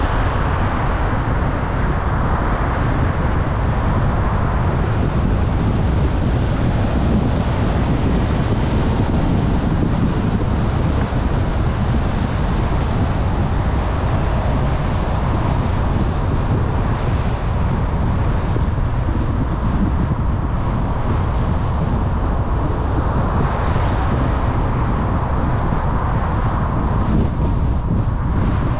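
Steady road and engine noise of a car being driven, heavy in a low rumble and even throughout.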